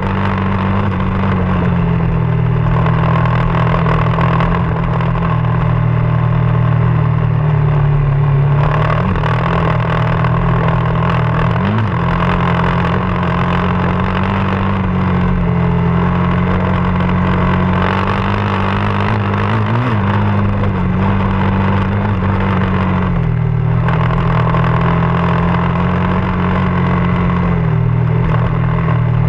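Off-road motorcycle engine running continuously under way, its note shifting up and down a few times with the throttle.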